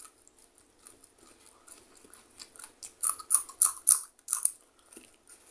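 Raw green chillies being bitten and chewed close to the microphone: quiet wet chewing, then about three seconds in a quick run of about five loud, crisp crunches, roughly two a second, as a fresh chilli is bitten through.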